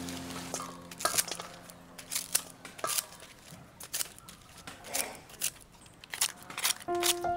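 Kitchen scissors snipping through stiff pandan leaves, a crisp irregular cut about once a second. A held music chord fades out in the first few seconds, and music comes back in near the end.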